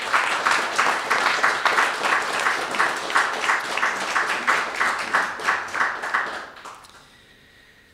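Audience applauding at the end of a poem; the clapping dies away near the end.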